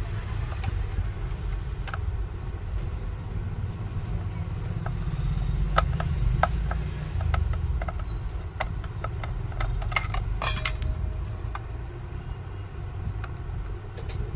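Scattered small clicks and taps of a screwdriver on metal terminal screws and the plastic housing of a Bajaj dry iron as the power cord's connections are unscrewed, with a short run of clicks about ten seconds in. Under them is a steady low rumble like nearby road traffic, and it is the loudest sound.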